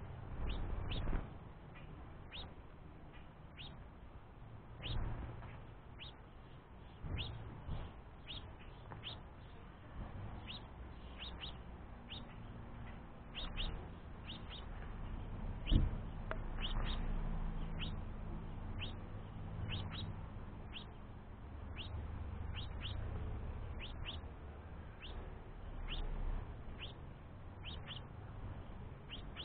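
House finch chirps, short falling calls repeated irregularly and often in pairs: a fledgling begging an adult male for food. A single sharp knock sounds about 16 seconds in.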